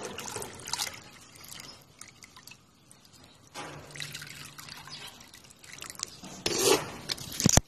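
Water poured from a jug into a rabbit's bowl, trickling and splashing in a few short spells, with a sharp knock near the end.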